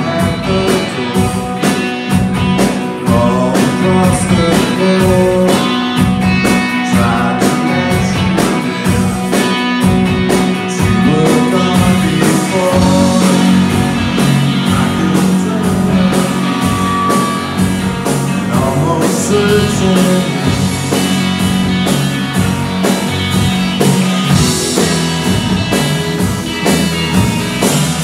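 Live rock band playing: electric guitars over bass, drums and keyboard, with a sustained low note underneath.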